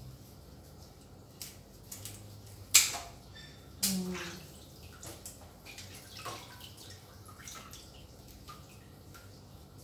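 Water splashing and dripping in a sink basin as raw chicken pieces are rinsed by hand, in scattered small splashes, with two louder splashes or knocks about three and four seconds in.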